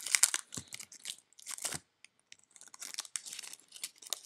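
Wrapper of a Mosaic football card pack being crinkled and torn by hand as a stubborn pack is worked open. It comes in uneven crackling bursts, loudest at the start and again about one and a half seconds in, with a brief pause after.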